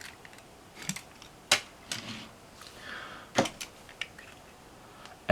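Small diecast toy cars being handled and set down: a handful of light, sharp clicks and knocks of metal and plastic with some soft rustling.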